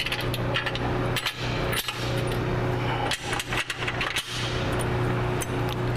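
Scattered light metal clicks and taps as a bumper mounting bracket is fitted over its bolts and the bolts are started by hand, over a steady low hum.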